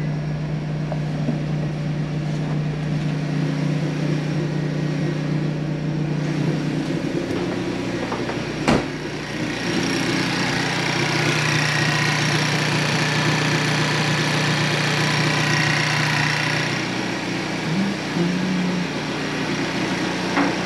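Hyundai Veloster N 2.0 T-GDI turbocharged four-cylinder engine with an open intake, idling steadily. A single sharp knock comes about a third of the way in.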